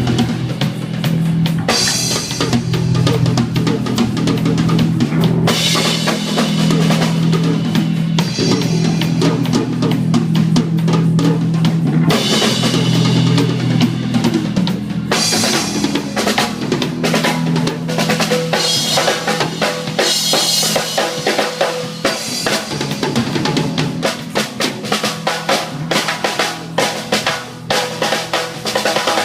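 Reggae dub band playing an instrumental passage: drum kit with kick and snare hits over a held bass line.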